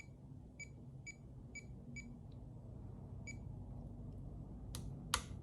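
Faint, short electronic beeps from a FrSky X20 Pro radio transmitter's touchscreen, about eight of them at uneven intervals as keys are tapped on its on-screen keyboard, followed by two sharp clicks near the end.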